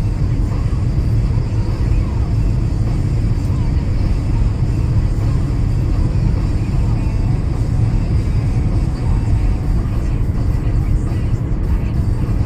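Car driving on rain-wet roads: a steady, low rumble of tyres and engine.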